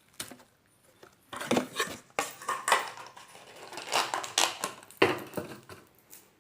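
Slime being squeezed and poked by hand, making a quick series of short wet clicks and pops.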